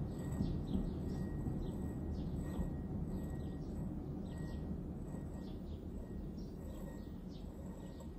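A low, steady rumble, easing slightly toward the end, with faint birds chirping here and there over it.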